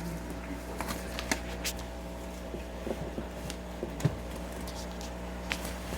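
The power button of a Levoit humidifier being pressed repeatedly, making about half a dozen short sharp clicks at uneven intervals, the loudest about four seconds in. The humidifier does not start: it has failed. A steady low hum runs underneath.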